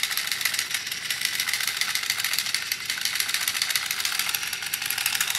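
Robotic fish toy's small motor running non-stop with a fast, steady, high-pitched rattling buzz; it is stuck on and will not switch off.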